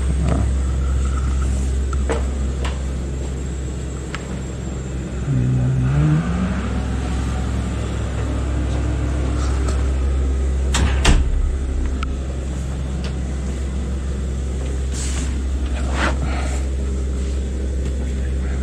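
A steady low rumble with a brief rising glide about five seconds in. A door latch clicks twice in quick succession about eleven seconds in, with a few lighter knocks later as a wooden wardrobe is handled.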